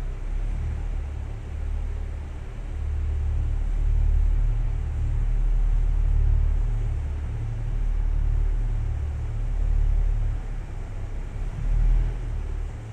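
Low, uneven rumble of a train creeping through a rail car washing machine, swelling and easing, with a brief surge near the end.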